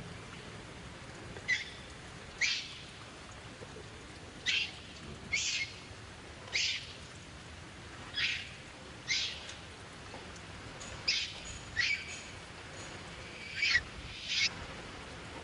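Baby macaque crying: short, high-pitched squealing cries repeated about once a second.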